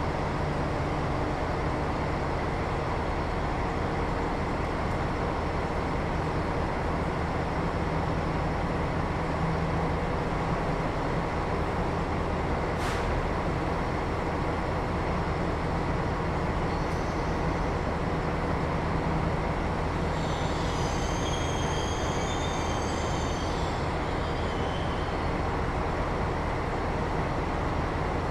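SNCF BB 22200 electric locomotive hauling an intercity train slowly into a station: a steady low rumble, a single sharp click about halfway through, and a high-pitched brake squeal lasting a few seconds about two-thirds of the way in as the train slows.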